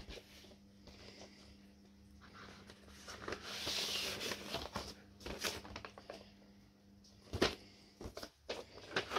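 Paper inner sleeve sliding out of an LP's cardboard cover, a soft rustle that builds about three seconds in, followed by a few light knocks of the record sleeve being handled.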